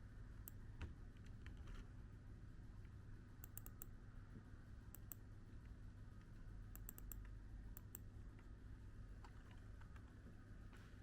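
Near silence: a steady low hum with a few faint, sharp clicks in small clusters of two or three, about half a second, three and a half, five, seven and eight seconds in.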